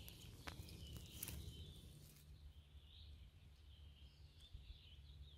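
Near silence: quiet forest ambience with faint, high bird chirps from about halfway, and a couple of soft clicks in the first second and a half.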